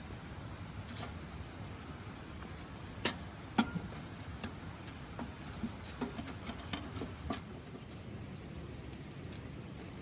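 Small hard objects being handled: two sharp clinks about three seconds in, then a run of lighter clicks and knocks, over a steady low rumble.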